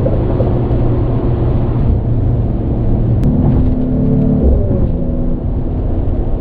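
Mercedes-AMG GT43's 3.0-litre turbocharged inline-six and stock exhaust, heard from inside the cabin at highway speed: a steady low drone. A clearer engine note comes in about three and a half seconds in and drops in pitch around five seconds.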